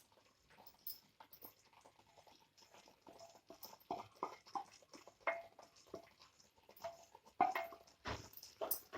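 Spoon stirring and scraping a thick, sticky coconut burfi mixture in a pan, with irregular short knocks and scrapes, some ringing briefly.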